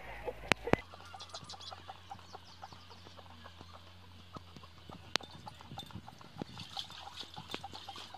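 Hand-priming lever of a tractor's diesel lift pump being worked, a faint, fast run of small clicks, pumping fuel up into the glass-bowl filter to bleed the fuel system. A low steady hum sits underneath.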